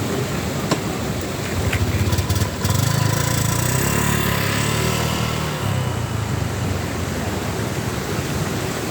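A motor vehicle's engine passing by, its rumble swelling about two seconds in and fading after about six, over steady outdoor background noise, with a few light clicks near the start.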